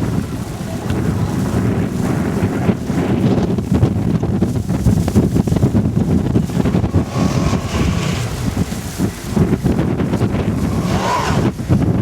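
Blizzard wind buffeting the microphone: a loud, steady low rumble. A brief whine rises and falls near the end.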